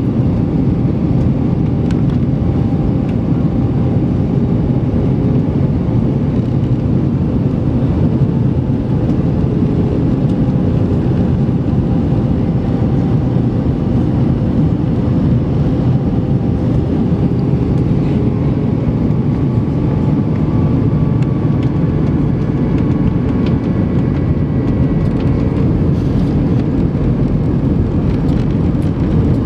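Airbus A320 cabin noise in flight: a steady rush of airflow and engine drone, with faint steady whine tones from the engines.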